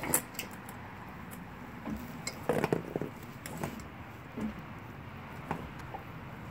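A young Blue Bay Shepherd gnawing a frozen deer leg: irregular sharp clicks, cracks and scrapes of teeth on frozen meat and bone, loudest in a cluster about two and a half seconds in.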